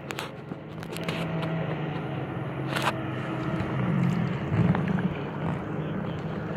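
Steady hum of a boat engine over water sloshing, with one sharp knock about three seconds in.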